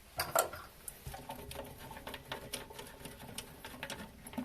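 Irregular small plastic clicks and taps as the cistern's plastic fill-valve fitting is handled and unscrewed.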